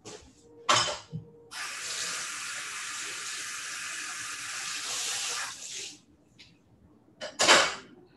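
A kitchen tap runs steadily for about four seconds, starting about a second and a half in and stopping sharply. Two short, loud noises come just before it and again near the end.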